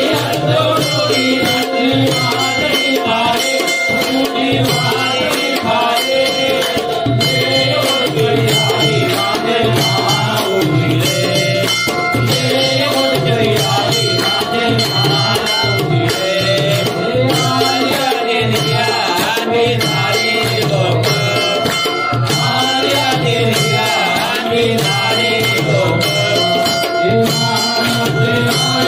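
Loud folk-style music: drums beating a steady, regular rhythm under long held melodic tones, with rattling percussion throughout.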